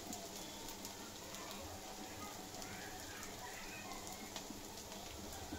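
Sabudana vadas shallow-frying in hot oil in a flat frying pan: a steady low sizzle with scattered small crackles.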